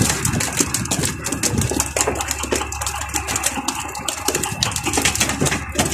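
Rapid, irregular tapping and knocking over a steady rush of sea and wind, as snoek are hauled aboard on handlines and flap against the wooden fish boxes on deck.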